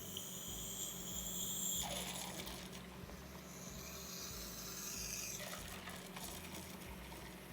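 Steam wand of a HiBREW CM6863 espresso machine hissing as it froths milk in a pitcher. The hiss breaks off about two seconds in and comes back for a couple of seconds before fading.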